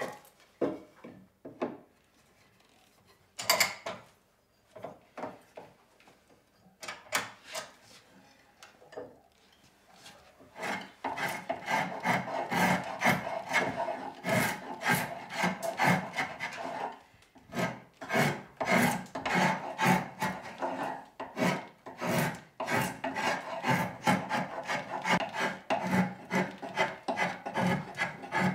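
Spokeshave cutting along a wooden wagon-wheel spoke, shaving it toward an oval section. A few separate knocks of wood being handled come first; from about eleven seconds in there are quick, repeated scraping strokes with brief pauses.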